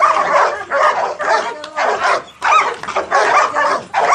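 Several dogs barking and yelping over one another, call after call without a real pause.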